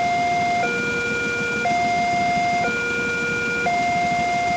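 Railway level-crossing warning alarm sounding: an electronic two-tone signal alternating evenly between a higher and a lower note, about a second each. It signals that a train is approaching and the crossing is closed.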